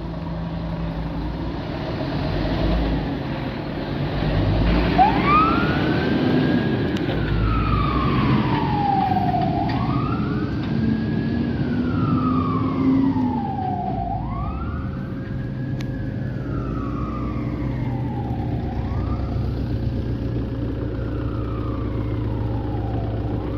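Fire engine's wail siren starting about five seconds in, each cycle rising quickly and falling slowly, repeating about every four and a half seconds. It sounds over the diesel engine of the Scania P360 fire truck pulling away.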